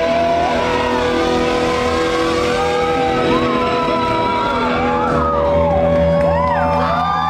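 Live rock band with violin playing loudly, a long note held over the band; the bass and drums come in heavier about five seconds in.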